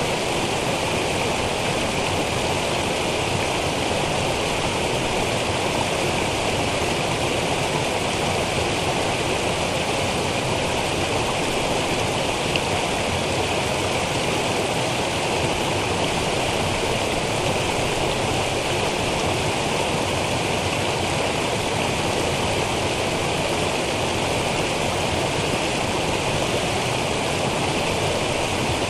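Small brook cascading over rocks in a series of little falls: a steady rush and splash of water.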